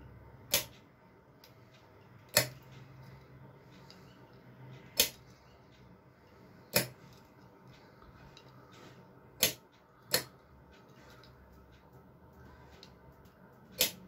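Solenoid door lock clicking sharply seven times at uneven intervals as its bolt pulls in and springs back, each time an authorised RFID tag is accepted.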